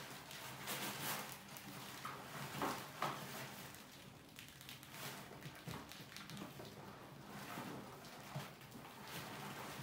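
Many mice moving about on a plastic bucket trap and its ramp: irregular scratching, scrabbling and small taps, a few louder ones about a second and three seconds in.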